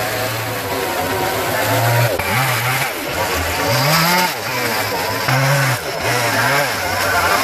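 Two-stroke gas chainsaw cutting into driftwood, its engine revving up and dropping back again and again as the bar goes in and out of the cut.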